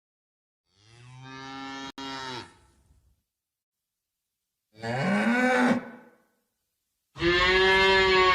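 Cow mooing three times, a few seconds apart, each call louder than the last.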